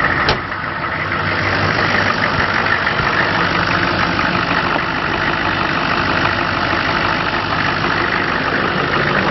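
GM 6.5 L turbo-diesel truck engine idling steadily, with a brief click just after the start.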